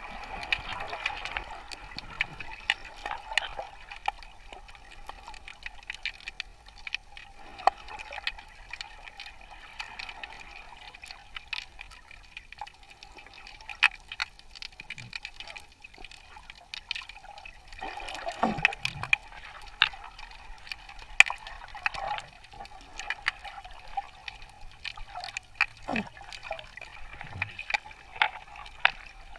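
Underwater sound picked up by a snorkeler's camera: a steady watery hiss with many scattered sharp clicks and crackles, and a few brief gurgles.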